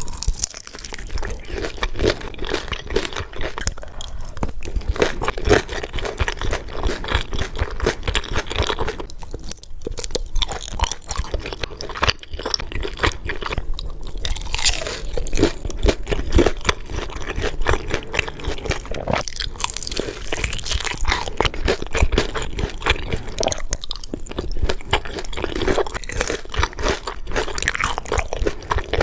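Close-miked ASMR eating: crunchy food being bitten and chewed, with dense crackling crunches throughout.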